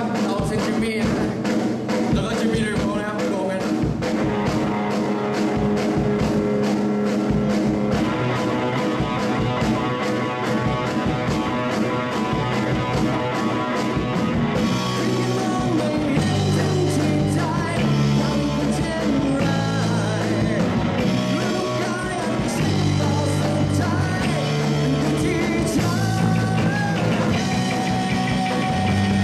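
Rock band playing, with singing, drums and guitar; the drums and bass come in fuller about halfway through.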